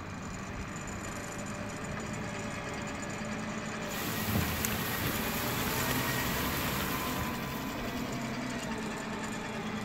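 International TD8G crawler dozer's diesel engine running steadily, getting louder about four seconds in.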